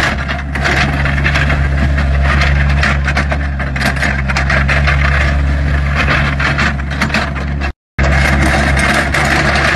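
Doosan mini excavator's diesel engine running steadily as the machine works its boom and bucket, with frequent clattering knocks over the engine hum. The sound cuts out for a moment about eight seconds in, then resumes.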